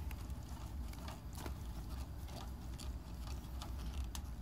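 Screwdriver driving the thick screws of a case fan through the back panel of a computer case into the fan frame. It gives faint, irregular clicks and scrapes.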